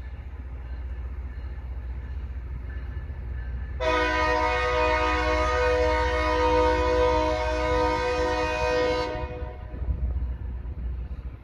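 Train air horn sounding one long chord-like blast, starting about four seconds in and lasting about five seconds, over a steady low rumble from the rail grinder train.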